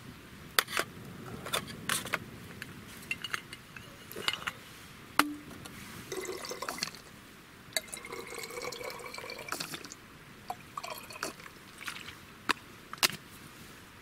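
Liquid poured through a funnel into a narrow-necked metal bottle, with a faint tone rising in pitch as the bottle fills. Sharp clicks and knocks of the bottle and funnel being handled sound throughout.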